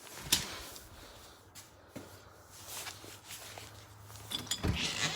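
Soft footsteps and shuffling, with a few sharp clicks and knocks near the end.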